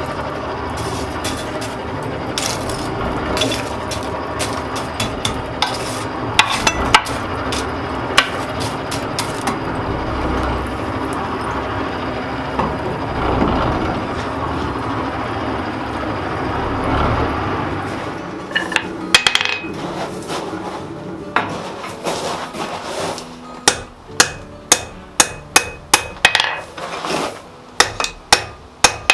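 Blacksmith's hammer striking steel on an anvil, forging a small knife blade. Sharp ringing blows come about two a second in the last few seconds, after a long stretch of steady background noise with scattered clinks.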